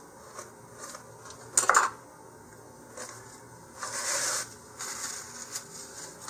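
Small hard objects handled on a work table: a sharp clatter about one and a half seconds in, then a short rubbing scrape about four seconds in and a few light taps.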